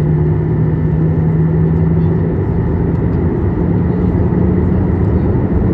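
Boeing 737-800's CFM56-7B jet engines running at taxi power, heard from inside the passenger cabin as a steady rumble with a low hum that shifts slightly higher about halfway through.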